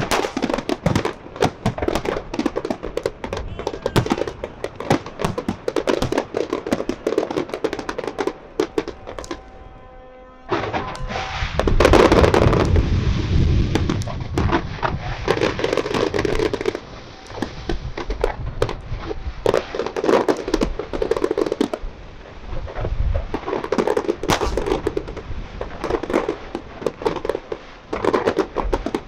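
Fireworks display: shells bursting in a dense run of bangs and crackling. A brief lull comes about a third of the way in, followed by the loudest barrage of bangs.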